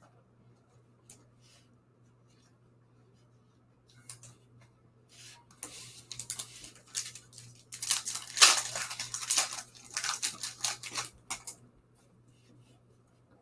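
2001 SP Game Bat Milestone Edition baseball cards being handled by hand. A few light taps are followed by about six seconds of rustling and scraping as cards are slid apart and shuffled, loudest about two-thirds of the way in. The old cards grind against each other rather than sliding freely.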